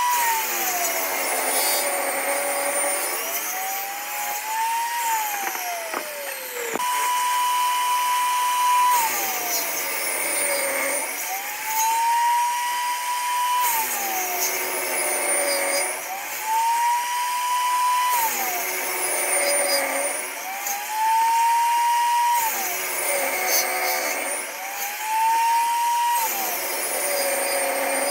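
A power tool's electric motor running loud and working wood. About every four seconds its pitch sags to roughly half as the tool bites under load, then winds back up, and it dives sharply once around the middle before coming straight back to full speed.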